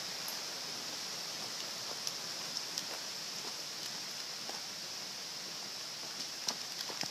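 Steady rainforest ambience: a continuous high-pitched hiss, with a few light taps of footsteps on the leaf-covered trail.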